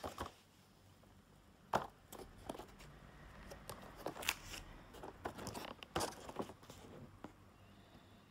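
A cardboard toy box with a plastic window, holding a set of wooden train cars, being picked up and turned over in the hands: scattered taps, knocks and rustles, with the sharpest knock about two seconds in and others near the middle.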